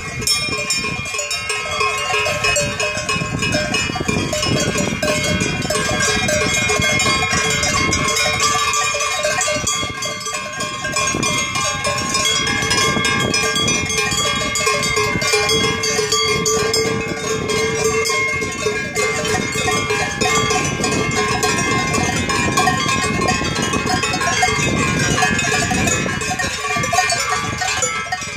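Many cowbells on a herd of walking cows ringing together without a break, a jumble of different pitches.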